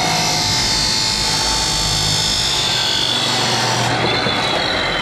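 Ridgid abrasive cut-off saw running at full speed, its abrasive wheel cutting through PVC pipe with a steady high whine.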